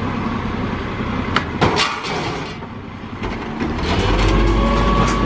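A rear-loader garbage truck's engine runs, with sharp cracking knocks from items landing and breaking in the hopper between one and two seconds in. From about four seconds a louder steady engine hum and whine take over as the hydraulic compactor works.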